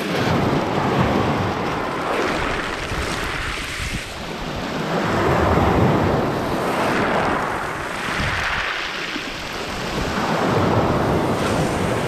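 Sea surf breaking and washing up over a pebble beach, close by, swelling into three surges about five seconds apart over a deep low rumble.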